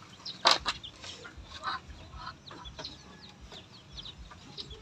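Poultry disturbed in a wooden slatted coop, giving many short high cries. Two sharp knocks sound about half a second in.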